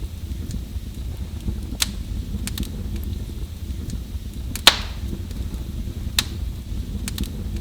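Wood fire burning in a fireplace: a steady low rumble with sharp crackles and pops every second or so, the loudest pop a little past the middle.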